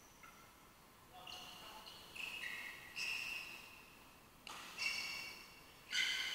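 Court shoes squeaking on the hard floor of a badminton hall as players push off and stop: about six short, high squeaks that come suddenly and grow louder, the loudest near the end. One short sharp tap comes past the middle.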